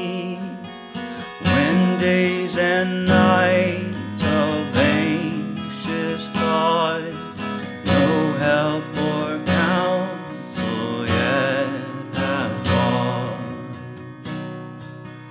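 Strummed acoustic guitar playing a hymn, with a voice singing the melody over it, the music growing quieter near the end.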